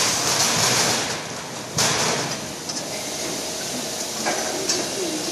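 Lift roller potato grader running: its steel rollers turning with a steady mechanical noise, with a sharp knock about two seconds in and a couple of lighter clicks near the end.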